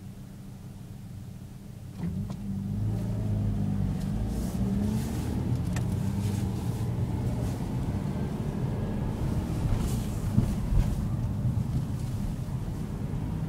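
Honda CR-V engine and road noise heard from inside the cabin: the engine idles steadily at a stop, then about two seconds in it pulls away, rising in pitch as it accelerates, and settles into steady driving with tyre and road noise.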